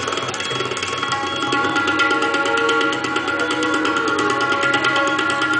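Tabla played in a fast, continuous rolling pattern of strokes that imitates a running train.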